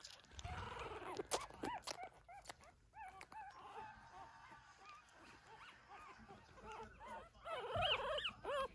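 Two-week-old Cavalier King Charles spaniel puppies squeaking and whimpering in short, high, rising-and-falling cries, louder and more frequent near the end.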